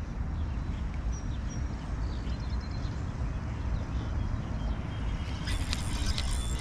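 Outdoor ambience with a steady low rumble of wind on the microphone and a few faint bird chirps, then a quick run of sharp clicks and knocks in the last second.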